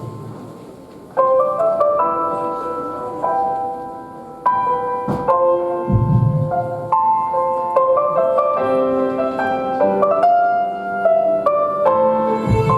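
Piano music: held notes and chords, with new ones struck every second or so. A deep low thud sounds about six seconds in and again near the end.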